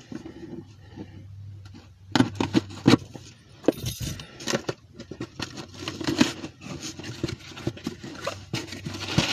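Packaging being worked open by hand: crinkling, scraping and tearing, with a string of irregular sharp crackles and clicks that gets busier from about two seconds in.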